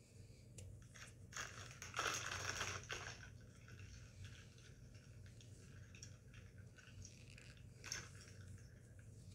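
A potato chip bag (Miss Vickie's) crinkling as it is handled. It is loudest for about a second and a half near the start, then gives lighter, scattered rustles with one sharper crackle near the end.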